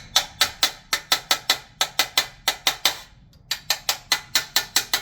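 Quick, even hammer taps on a small round-ended repoussé punch, about five a second, driving a copper sheet out from the back to raise a design. The tapping pauses briefly a little after three seconds in, then picks up again at the same pace.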